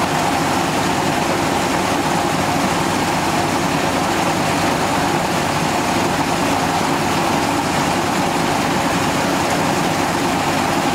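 Gold-ore processing machinery running steadily: an unbroken mechanical drone with a hiss over it.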